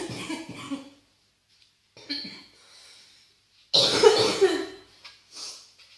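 A person's harsh, deep bronchitis cough coming in repeated fits: one bout trails off within the first second, a weaker cough comes about two seconds in, then a loud run of coughs about four seconds in, followed by a few short ones.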